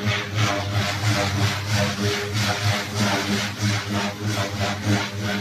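Electric Goosky RC helicopter in flight: a steady motor and rotor hum that pulses in loudness about three times a second.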